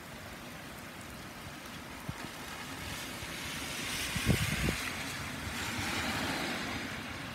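Steady heavy rain, with a car driving past on the wet street: the hiss of its tyres on water swells from about three seconds in and eases near the end. Two brief low thumps about four seconds in.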